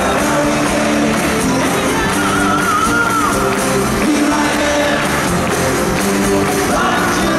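Live unplugged rock band playing with acoustic guitars, with men singing into microphones, heard from among the audience in a large arena. A wavering high note stands out about two seconds in.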